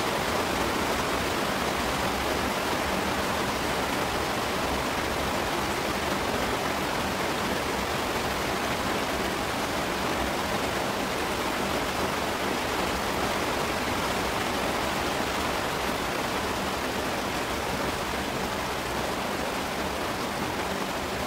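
Steady, loud rushing noise, even and unbroken, that covers everything else.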